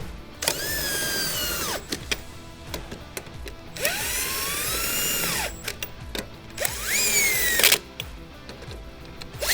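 Impact wrench run three times in bursts of one to two seconds, spinning lug nuts down snug, its whine rising and then dropping as each nut takes up; a fourth run starts at the very end. Background music underneath.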